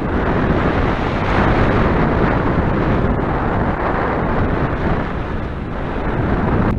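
Loud, steady rush of airflow on the microphone of a camera mounted on a hang glider in flight, with no tones in it.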